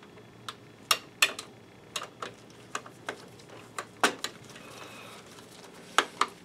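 Sharp, irregularly spaced clicks and taps of small screws and a screwdriver being handled and started into the projector's case, about a dozen in all.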